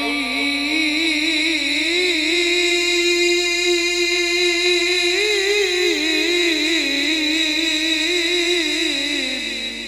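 A man reciting the Quran in a melodic chanted style, holding one long, ornamented note whose pitch wavers up and down. He is amplified through a handheld microphone, and the note drops and fades out near the end.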